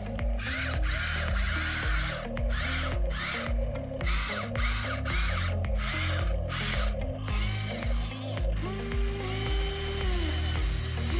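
Electric gear motors of a 1/14-scale Huina 593 RC excavator whirring in short repeated bursts, then a steadier motor whine that bends in pitch, over background music with a steady bassline.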